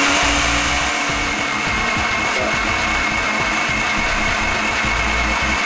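Countertop blender running steadily at speed, churning a thick, milky peanut punch, with a steady high-pitched motor whine.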